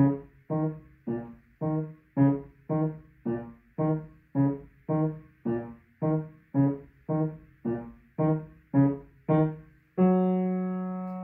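Grand piano playing a steady beat of short detached chords, about two a second, each dying away before the next. Near the end a final chord is held and rings out.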